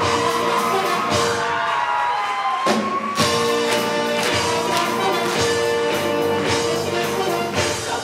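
Show choir singing with a live band: brass horns and a drum kit playing to a regular beat.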